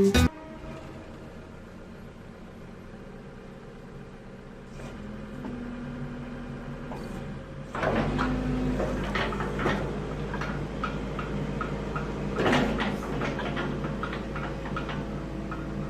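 Kobelco SK75UR-3ES mini excavator's diesel engine starting about halfway through and settling into a steady idle, with light clicks and a few knocks over it.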